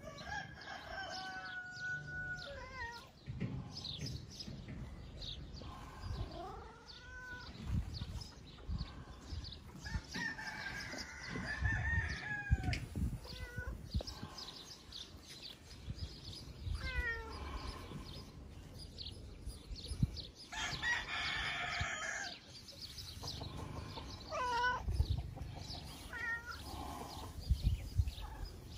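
Farmyard animal calls: roosters crowing and chickens clucking at intervals, with a domestic cat meowing now and then.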